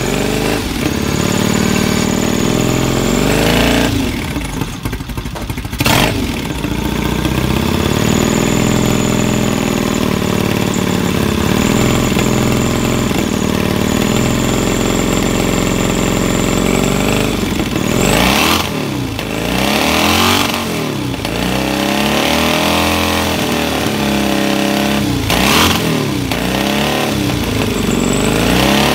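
Triton motorcycle's 750cc pre-unit Triumph parallel-twin engine running just after being kick-started. It briefly sags in the first few seconds and gives a sharp crack about six seconds in, then runs steadily. In the last ten seconds it is revved up and down several times.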